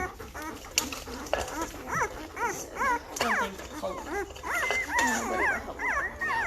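A litter of week-old Great Bernese puppies whining and squealing: many short, high cries that rise and fall, overlapping one another. These are newborn pups worked up and hungry, waiting to nurse.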